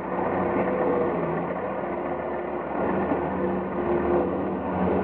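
Engine of a large-tyred installation machine running steadily under load, its pitch rising and falling slightly.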